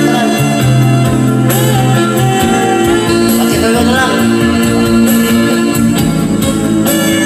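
Man singing karaoke along to a recorded music backing track.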